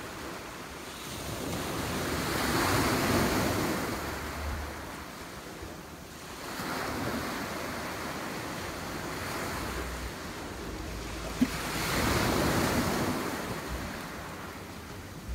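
Small waves breaking on a stony beach and washing up over the pebbles, surging and easing every few seconds, with wind buffeting the microphone. A single brief click comes about eleven seconds in.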